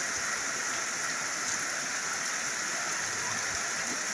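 Rain pouring down steadily: an even, unbroken hiss.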